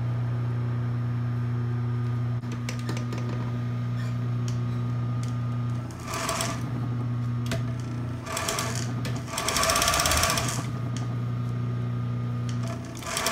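Industrial sewing machine sewing a seam through muslin in a few short runs of rapid stitching about six to eleven seconds in, over a steady low motor hum that stops shortly before the end.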